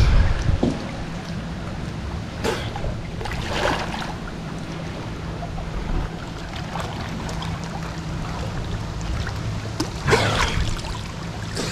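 Water splashing and sloshing around people wading chest-deep, with a few separate splashes; the loudest, about ten seconds in, is a man coming up out of the water. A steady low hum runs underneath.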